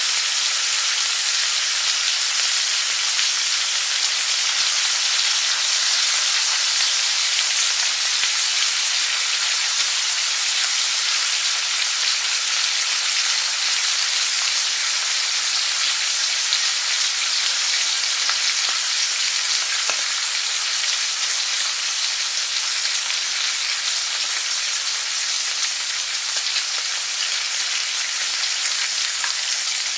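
Food frying in a pan: a steady, even sizzle with a few faint pops here and there.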